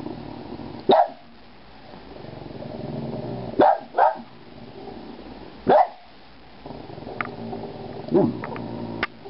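A small dog barking about five times in short, unevenly spaced barks, two of them close together, with a low growl between them. She is alarm-barking at fireworks going off in the distance.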